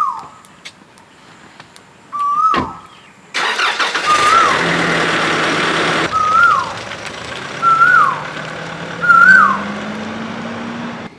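A vehicle engine starts about three and a half seconds in, runs loudly for a few seconds, then settles to a steadier run whose low note slowly climbs. Throughout, a short whistled call repeats about every one and a half to two seconds, each call held briefly, then rising and sliding down; these calls are the loudest sound.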